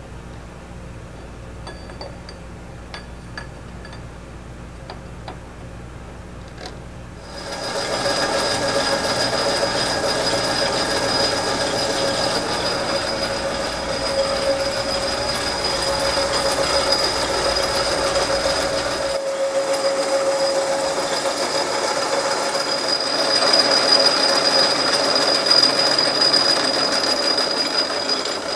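Hardinge Cataract bench lathe taking a facing cut across a metal ring: a low hum and a few light clicks, then about seven seconds in the cut begins and the tool chatters with a steady high-pitched squeal over the cutting noise, the kind of chatter that leaves chatter marks on the face.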